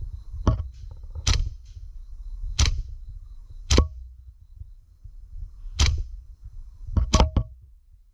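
Airsoft rifle firing spaced single shots, each a sharp crack, then a quick burst of three near the end, over low rumbling wind and handling noise on the microphone.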